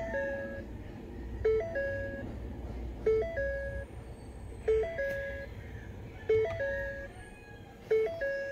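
Car's electronic warning chime: a three-note pattern, a short low note, a higher note, then a longer middle note, repeating about every second and a half.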